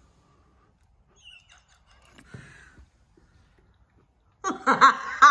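Mostly quiet with a few faint small noises, then about four and a half seconds in, loud high-pitched laughter breaks out in quick stuttering pulses.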